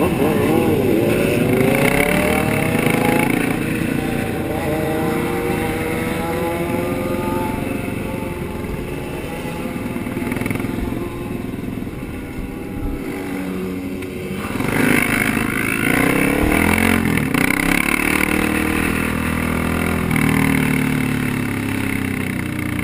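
A pack of sport motorcycles riding together, their engines revving and climbing in pitch through the gears, most strongly in the first few seconds and again about fifteen seconds in, over a steady roar of engines and road noise.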